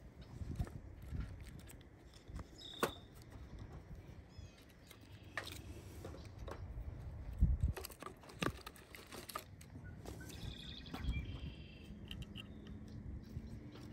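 Small birds chirping now and then, with a short trill about eleven seconds in, over a low outdoor rumble. Scattered clicks and knocks come through it, the loudest a low thump about halfway through.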